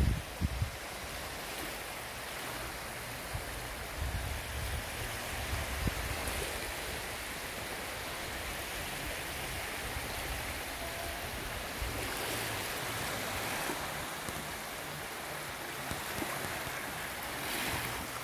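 Small sea waves breaking and washing up on a sandy shore, a steady surf wash, with wind buffeting the microphone at times.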